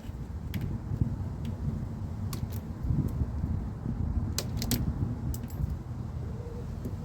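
Low rubbing and rustling with scattered sharp clicks: a bundle of car wiring being handled and wrapped in fabric tape.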